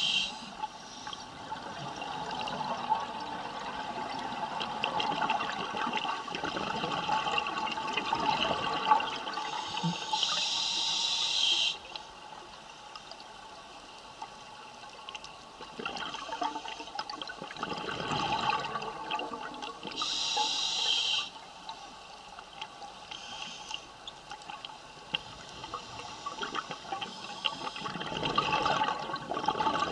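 A diver breathing through a scuba regulator underwater. A sharp hiss of inhalation comes twice, about ten seconds apart. Between the hisses come bubbling, crackling exhalations.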